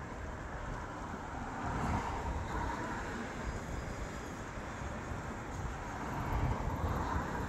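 Outdoor street ambience: road traffic going past, with a vehicle's tyre noise swelling and fading about two seconds in and another near the end, over a low, uneven rumble.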